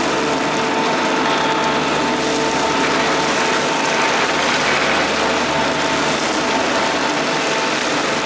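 Kubota D1105 three-cylinder diesel of a Madvac rider vacuum running steadily, a loud even mechanical noise with a steady whine over it.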